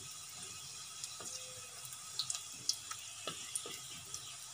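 Egg pakoras deep-frying in hot oil in a kadai: a steady sizzle with scattered pops and crackles, and light clicks of a steel spoon turning the fritters.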